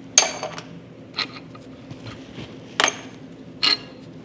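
Four sharp metallic clinks, each with a brief ring, as the steel wheel studs are worked out of the axle hub.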